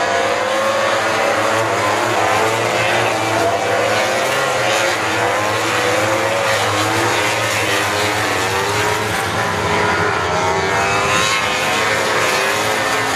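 A pack of MotoGP racing motorcycles' four-cylinder engines running hard at high revs, several bikes overlapping. The pitch rises and falls continuously as riders roll the throttle and shift gears through a corner.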